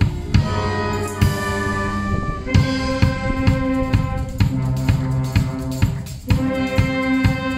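Wind band playing: held brass chords over a drum kit and bass drum keeping a steady beat.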